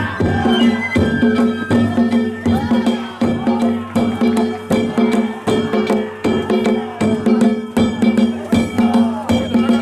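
Danjiri festival band (narimono): taiko drums and small hand gongs (kane) struck in a quick, even rhythm, about three strikes a second, with the gongs' tones ringing on between strikes.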